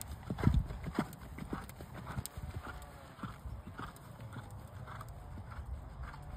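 A horse's hoofbeats on a sandy dirt track at a canter: a steady rhythm of dull thuds, a little under two strides a second, with one louder thump about half a second in.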